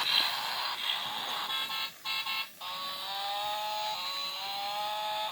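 Battery-operated toy car's electronic sounds: about two seconds of dense buzzing clatter that cuts out twice, then a thin electronic tune of short stepping tones repeating about once a second.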